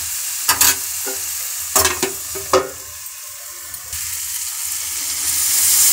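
Potato and cabbage sabzi sizzling in a metal kadhai. A metal lid clinks and knocks against the pan a few times in the first two and a half seconds as it is put on. The sizzle dulls for a moment with the lid on, then grows louder again near the end.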